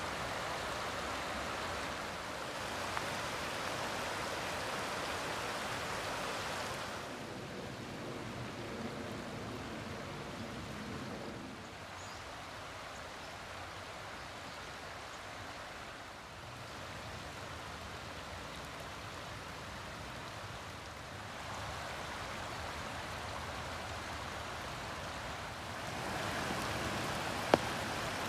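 Shallow forest creek rippling over stones: a steady rush of water whose loudness and tone change abruptly every few seconds. A single sharp click sounds near the end.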